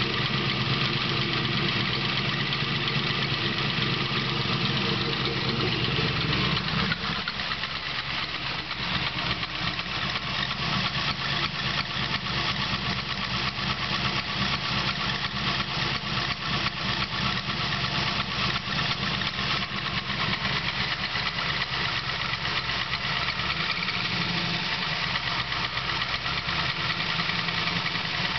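383 LSX V8 engine idling with a fast, even ticking knock, which the owner takes for piston slap. About seven seconds in the deep drone drops away and the ticking comes to the fore.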